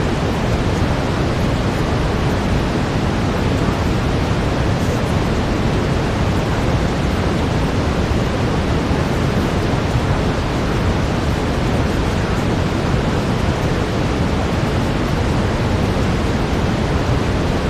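Steady brown noise: an even, deep hiss with its weight in the low end and no changes throughout.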